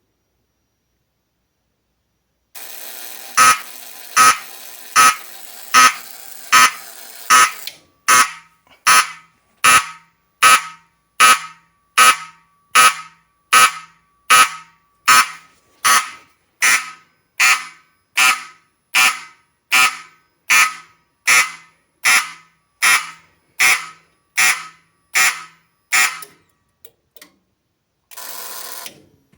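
Fire alarm signal pulsing in march time from a 1975 Standard Electric Time SET 7000 fire alarm system: short, sharp pulses a little more than once a second. It starts about two and a half seconds in with a steady noise under the first few pulses, and cuts off a few seconds before the end, followed by a couple of faint clicks.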